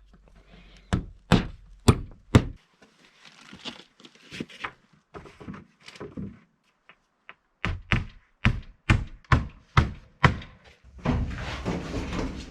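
Sharp knocks and thunks on wood from carpentry work, scattered at first, then a quicker run of blows about two or three a second in the second half, with a rougher scraping noise near the end.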